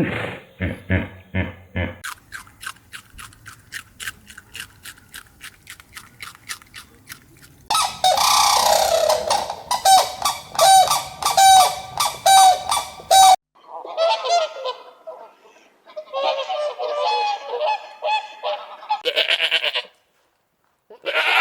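A series of animal calls in separate edited clips. A fast train of clicking pulses is followed by loud repeated calls, about two a second, that cut off suddenly. Two bursts of chattering calls and a short call near the end follow.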